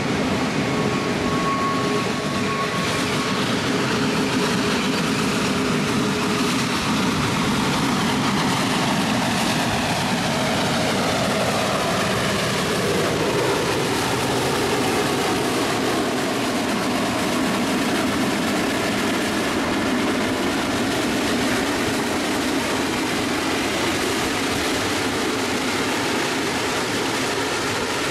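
Geared Heisler steam locomotive No. 6 and its open passenger cars passing close by: a steady rumble and clatter of wheels on the rails, with thin high tones in the first few seconds, and the locomotive going past working hard about halfway through, its pitch sliding as it passes.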